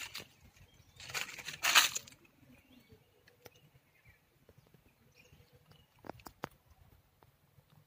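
A crunching, crackling rustle lasting about a second, followed by a few sharp clicks near the end.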